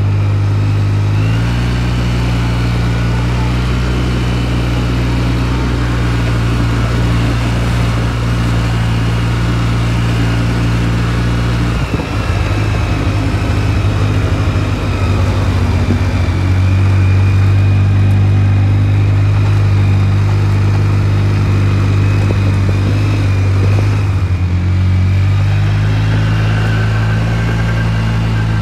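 An off-road vehicle's engine running steadily under way, its pitch shifting a few times, with a faint high whine above it. About twelve seconds in the engine sound turns rough and uneven for a few seconds, then steadies and runs a little louder.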